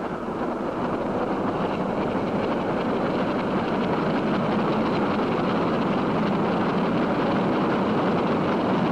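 Train crossing a steel viaduct: a steady roar of steel wheels on the rails, building up in the first second and then holding even.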